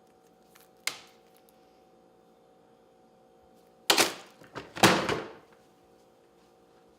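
Things being handled and moved about: a single sharp click about a second in, then two short bursts of knocking and rustling a second apart, the second a little longer.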